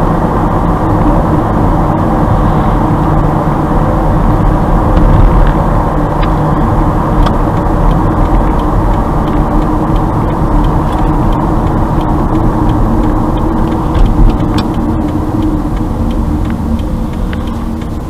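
Steady road and engine noise of a car driving, heard from inside the cabin, easing off a little near the end as the car slows.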